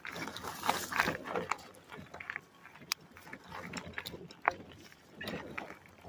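Footsteps crunching on loose gravel at an uneven walking pace, with scattered small clicks from shifting stones.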